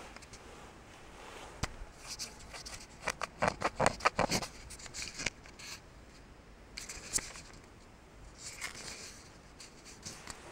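Nylon shell of a quilted down coat rustling and swishing in quick bursts as it is moved and handled, busiest in the first half, with a few shorter rustles later.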